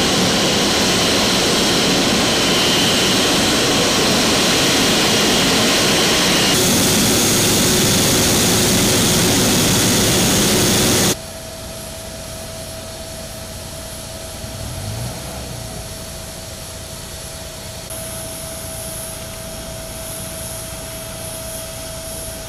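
Boeing 777 jet engines running as the airliner taxis in, a loud steady rushing roar. About eleven seconds in it cuts off suddenly to a quieter steady machine hum with one held tone.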